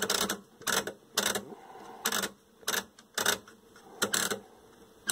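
Rotary channel-selector tuner of a 1979 General Electric colour TV clicking through its detents as the knob is spun round and round, a little under two clicks a second. The tuner is being worked to spread freshly sprayed DeoxIT contact cleaner over its contacts.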